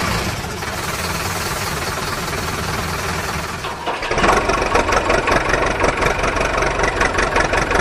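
Engine sound effect laid over toy vehicles: a motor vehicle engine running steadily. About four seconds in it switches abruptly to a louder engine with a fast, even pulsing.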